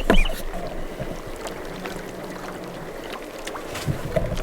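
Steady wind and water noise on open water, with a brief sharp sound right at the start.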